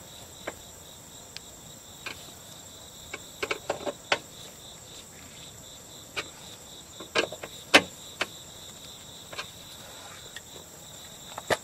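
Small hand ratchet clicking in short bursts as the bolts holding the window glass to the regulator are tightened, with crickets chirping steadily behind.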